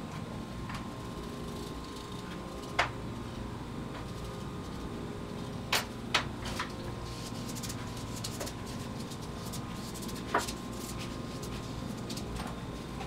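Scattered short clicks and scrapes of hand tools working the edge of a hardened plaster mould ring, over a steady background hum. The sharpest clicks come about three seconds in, in a quick cluster around six seconds, and once more about ten seconds in.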